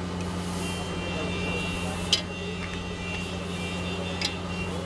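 Hot oil sizzling in a large iron karahi as jalebis fry, over a steady low hum. Two sharp metallic clicks, about two seconds in and again near four seconds, come from the tongs knocking against the pan.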